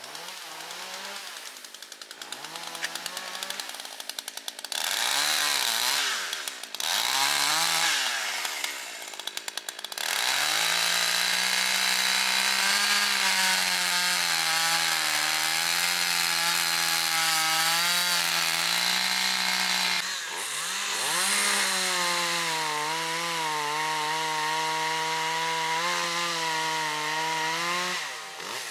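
Chainsaw engine blipped up and down several times, then held at full throttle cutting wood for about ten seconds. The pitch sags slightly under load. A brief drop and rev-up follow, then a second long cut that stops just before the end.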